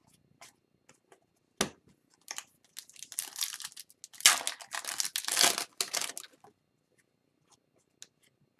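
Foil wrapper of a hockey card pack being torn open and crinkled in a few seconds of crackling bursts, after a single sharp tap about a second and a half in.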